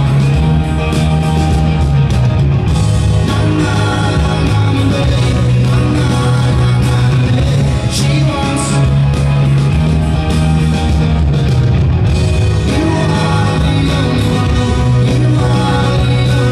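Live rock band playing loud in an arena, heard from among the audience: heavy bass, electric guitar and drums with cymbal crashes, and a singing voice over it.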